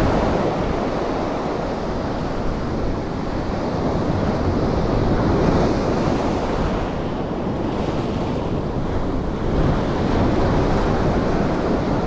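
Ocean surf breaking and washing up the sand, swelling and easing as each wave comes in, with wind noise on the microphone.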